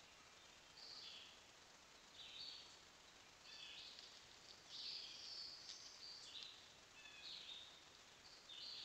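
Faint, high chirping calls from a small wild creature, short stepped phrases repeating about once a second over quiet outdoor background.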